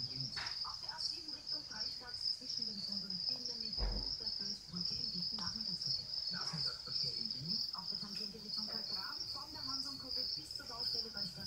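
A cricket chirping in a steady, high, continuous trill, with a soft low thump about four seconds in.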